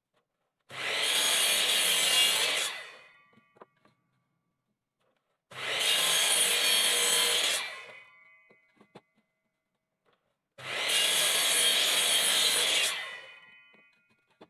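Bosch miter saw making three crosscuts through a weathered wooden board, each about two seconds long, starting suddenly and trailing off as the blade winds down. A few faint clicks come between the cuts.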